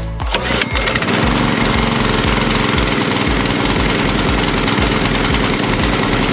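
Small petrol engine of a pressure washer kicks in just after the start and runs steadily, with background music that has a beat underneath.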